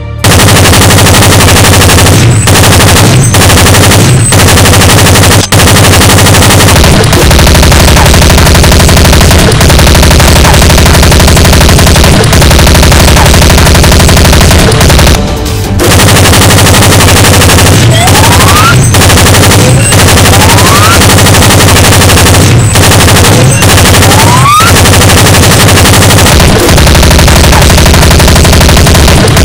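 Machine-gun sound effect: loud, rapid automatic fire that runs almost unbroken, pausing briefly about five and fifteen seconds in. A few short rising whistles like ricochets come around twenty seconds in.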